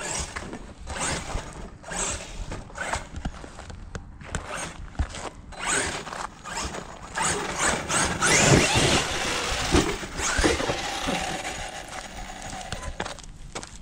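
Radio-controlled truck driving over loose dirt: its electric motor revving in bursts and its tyres scrabbling and churning through soil and clods, with short knocks as it bounces. The loudest stretch comes about eight to eleven seconds in.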